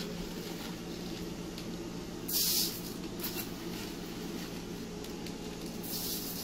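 Flax seed poured from a half-cup measuring cup into a metal bucket of feed, two short hissing pours, the first and louder about two seconds in and the second near the end, over a steady low hum.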